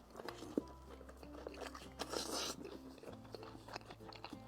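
Crunchy chewing of a deep-fried oyster's crisp batter coating, a few crunches with the loudest about two seconds in. Faint background music under it.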